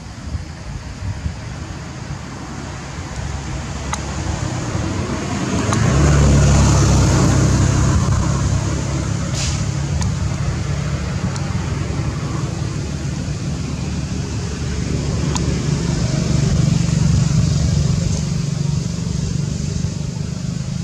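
Low engine rumble of a motor vehicle, swelling about six seconds in and again later, with a few faint clicks.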